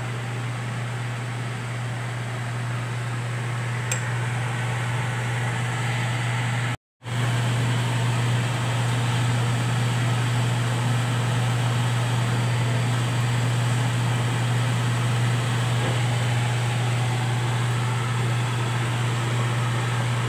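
Steady fan hum: a strong low drone with an even hiss over it. It is broken once by a brief cut to silence about seven seconds in.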